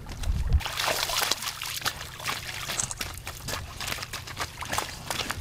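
Water splashing and pouring off a large landing net as a carp is lifted out of the shallows in it, an irregular run of splashes and trickles that starts about half a second in.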